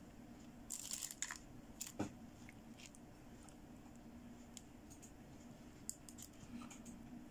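Pink plastic toy bangle bracelets handled by hand: faint light clicks and rustles, the sharpest click about two seconds in, over a steady low hum.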